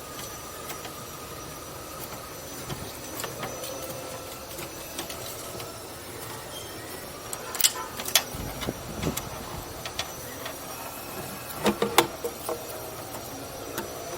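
Mitsubishi 4G64 four-cylinder engine running steadily at idle under an open hood, with a faint steady whine over the hum. A few sharp clicks and knocks come a little past halfway and again near the end.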